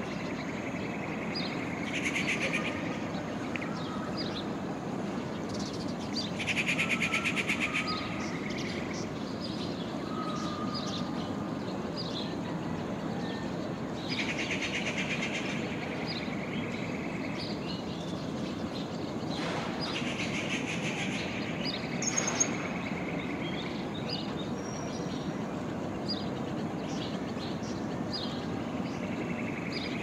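Common babbler calling: short chirps throughout and about five harsh, rapidly pulsed chattering calls of a second or two each, over a steady low background rumble, with one sharp click about two-thirds of the way through.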